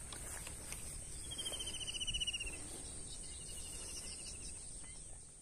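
Steady high-pitched insect drone, with a rapid trilled call twice, first about a second in and again, fainter, around three seconds in.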